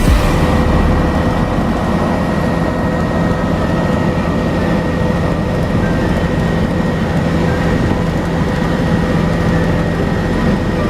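Tour helicopter in flight, heard from the passenger cabin: a loud, steady rotor and turbine noise with a few constant whining tones.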